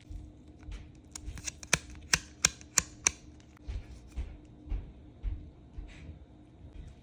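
Handling of a microSD card and its opened packaging: a quick run of about seven sharp clicks in the first three seconds, then a few softer knocks.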